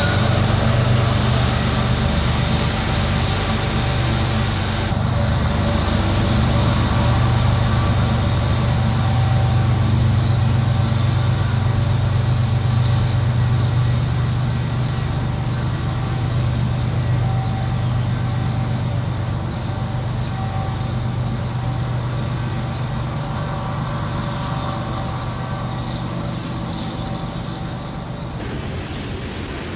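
Diesel freight locomotive engine running steadily under load as the train passes, a deep hum with fainter higher tones above it. It eases off slightly near the end.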